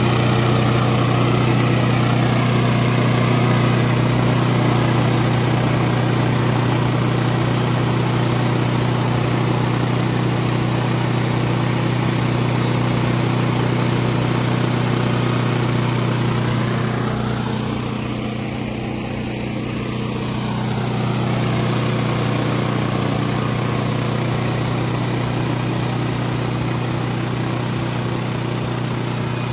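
Wood-Mizer LT28 portable band sawmill running under load, its engine holding a steady hum while the band blade cuts lengthwise through a large log. The sound dips a little about two-thirds of the way through, then picks back up.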